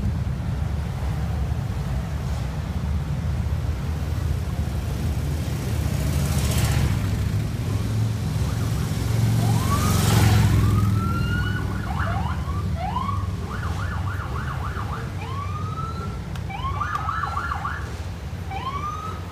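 Police cars passing slowly and close by, their engines and tyres giving a steady low rumble that swells as each car goes past. From about halfway, the sirens give repeated short rising whoops and a few quick yelp bursts.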